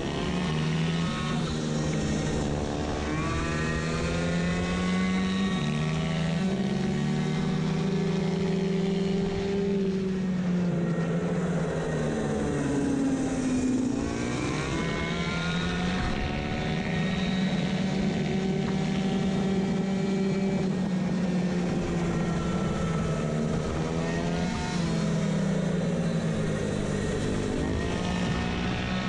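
Two-stroke racing moped engine with a variator transmission running at high revs on a track lap. Its pitch sags and climbs back up several times as the bike slows for corners and accelerates out of them.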